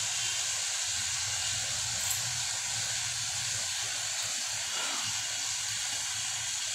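Potato, tomato and spice masala frying in an oiled kadai, giving a steady sizzling hiss.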